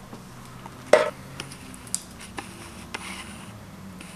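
A few light clicks and knocks from the engine's oil pan being handled, the sharpest about a second in, with smaller ones roughly every half second after it, over a faint low hum.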